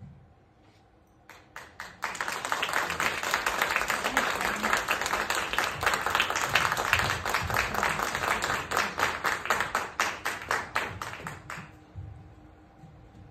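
Audience applauding: a few scattered claps about a second in quickly swell into full applause, which thins out and dies away near the end.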